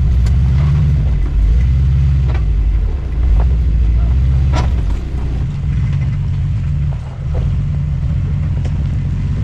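Engine of a lifted 4x4 GMC Safari van crawling over rocks, its low drone swelling and easing with the throttle, with a few sharp knocks from the rocks and chassis.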